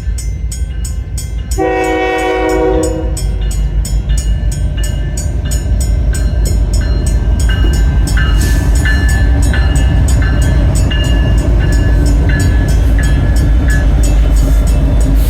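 A freight locomotive sounds a short horn blast about two seconds in, then the train passes with a loud, steady rumble that builds up and holds, with brief higher tones over it.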